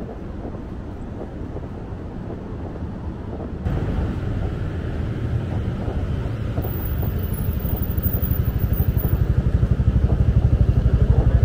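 Street traffic: vehicle engines running, a low rumble that steps up about a third of the way in and keeps getting louder. In the second half a close engine runs with a fast, even pulsing.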